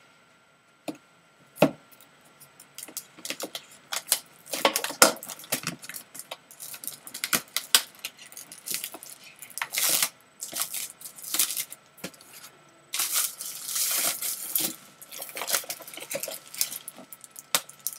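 Apple keyboard's cardboard box and packaging being opened and handled: a run of irregular clicks, taps and rustles, with a longer stretch of sliding or tearing about thirteen seconds in.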